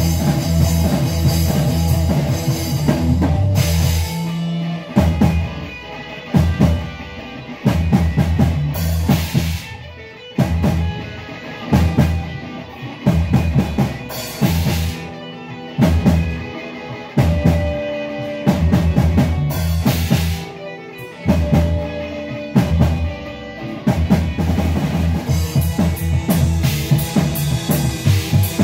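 Rock band playing live: electric guitars, bass guitar and drum kit. Through the middle the band plays a stop-start passage of loud accented hits with short breaks between them, then returns to full continuous playing near the end.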